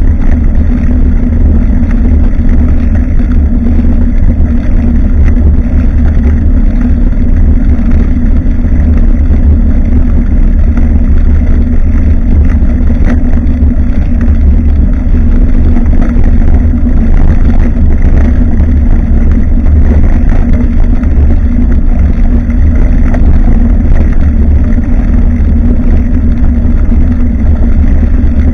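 Steady loud rumble of wind and road vibration on a bicycle-mounted action camera's microphone while riding, with a constant low hum.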